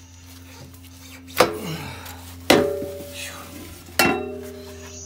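Steel exhaust pipe and muffler clanking three times as they are handled, each knock ringing on briefly.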